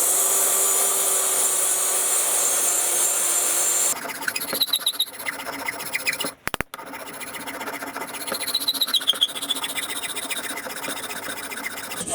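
Power finger sander working an aluminium knife handle: it runs steadily for about four seconds, then changes abruptly to an uneven scratchy grinding with high squeals as the metal is pressed to the abrasive, broken off briefly past the middle.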